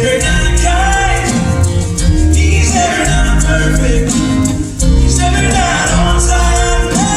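Live acoustic band playing a worship song: a singer's voice carries the melody over steady bass notes and light rhythmic percussion.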